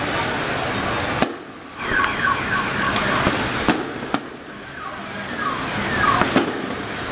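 Fireworks going off. A dense crackle comes first, then a scatter of sharp bangs. Car alarms sound in between with repeated sweeping tones, set off by the blasts.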